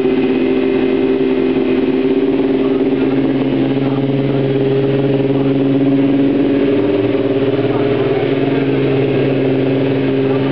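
Kawasaki ZX-6R Supersport race bike's inline-four engine running at a steady raised idle.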